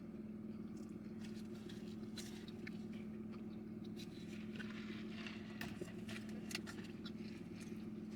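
Soft eating sounds over a steady low hum: small scattered clicks and crackles of food being bitten and chewed and its paper wrapping handled.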